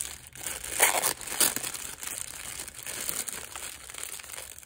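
Thin clear plastic packaging bag crinkling as hands pull and unwrap it from around a small cosmetic pouch. The crackling is loudest about a second in and again around a second and a half.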